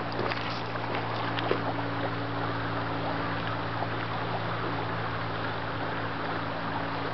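Shallow river water running and rippling over stones, with a steady low mechanical hum underneath and a brief click about a second and a half in.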